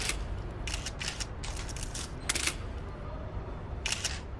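Camera shutters clicking in several short bursts, a second or so apart, over a low background hum.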